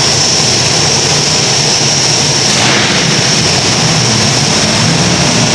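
A large vehicle engine running with a loud, steady drone.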